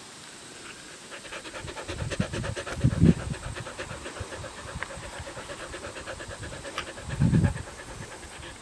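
Rough collie panting fast and close to the microphone, in an even rhythm of short breaths. Two loud dull thumps about three and seven seconds in, as the dog bumps the camera.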